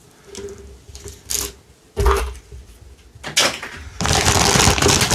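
Plastic toy capsules and their contents being handled and opened: a few sharp clicks and knocks, then a noisy rustle lasting over a second near the end.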